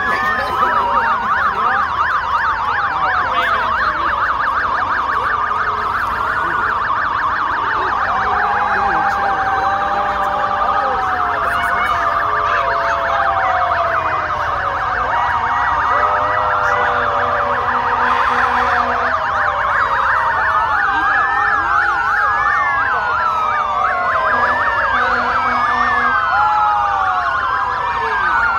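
Several emergency vehicle sirens sound at once as a parade of fire trucks and other emergency vehicles approaches. A fast yelp dominates the first half, and several slower wails rise and fall over one another in the second half.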